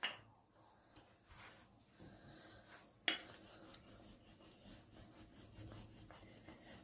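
Wooden rolling pin rolling back and forth over a flour-dusted stack of thin dough rounds on a silicone mat: faint rubbing strokes, with one sharp knock about three seconds in.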